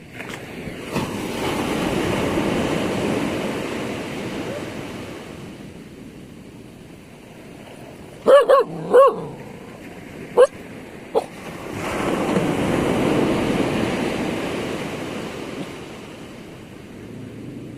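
Ocean waves breaking on the shore at high tide, two surges of surf that swell and fade away. In the lull between them a dog barks: three quick barks about eight seconds in, then two single ones.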